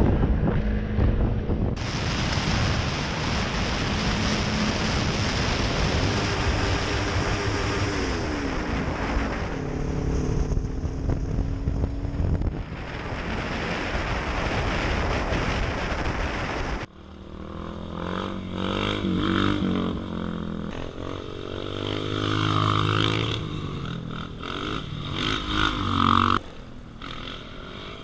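Motorcycle on-board sound: first a heavy wind rush over the microphone with a sport bike's engine note rising and falling underneath. After a sudden cut about two-thirds through, a supermoto's engine revs up and drops back repeatedly as it is ridden in wheelies.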